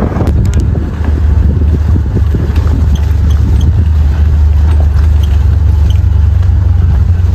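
Steady low rumble of a moving vehicle's engine and road noise, heard from on board.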